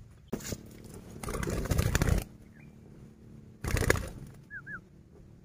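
Spotted dove flapping its wings in three flurries: a brief one at the start, a longer, louder one of about a second, and another about three and a half seconds in. A faint short bird chirp follows near the end.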